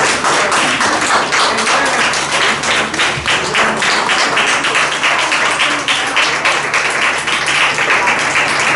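Congregation clapping in a steady rhythm along with music.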